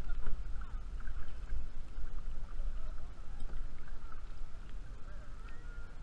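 Kayak being paddled on calm water: paddle strokes and water against the hull, under a steady low wind rumble on the bow-mounted camera's microphone.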